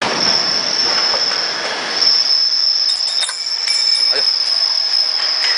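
Combination woodworking machine running: a steady high-pitched whine over a broad rushing noise, with a few sharp clicks in the second half.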